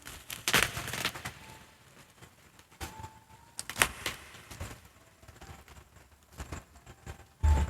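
Bubble wrap and plastic packaging being unwrapped by hand: irregular crinkles and sharp clicks, with a dull thump near the end.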